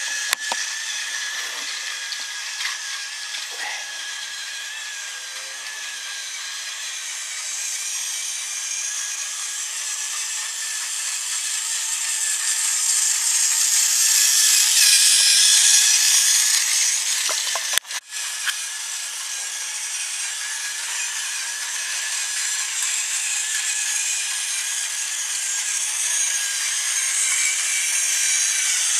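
Battery-powered Tomy toy train power car running along plastic track, its small motor whirring steadily. It grows louder about halfway through as the train comes close, then eases off again.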